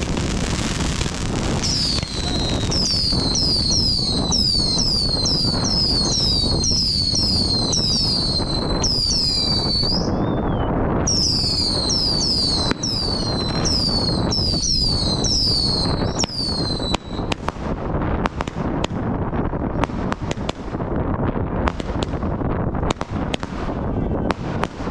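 Fireworks going off: a quick run of shrill whistles, about two a second, over dense crackling and bangs. The whistles stop about two-thirds of the way through, leaving scattered separate bangs.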